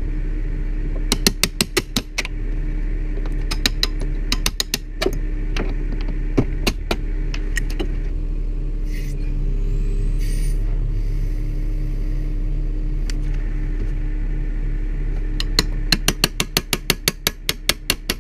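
Rapid metal ratchet clicks in several quick bursts from a hand-operated ratchet being pumped to tension the lifting rigging, over the steady running of a bucket truck's engine.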